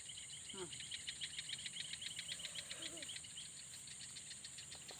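Night insects calling: a steady high-pitched buzz with a rapid pulsed chirping over it that stops about three and a half seconds in.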